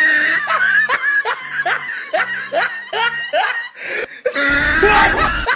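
A person laughing in a long run of short chuckling bursts, about three a second, over faint background music.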